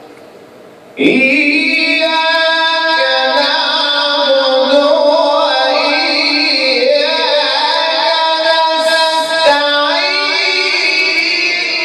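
A Quran reciter's solo voice in melodic recitation. It comes in loudly about a second in and holds one long, ornamented phrase with wavering, bending notes, then breaks off briefly near the end and goes on.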